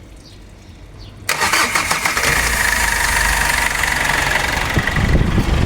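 Foton Tunland pickup engine cranked by its starter about a second in, catching and settling into a steady idle after its repair.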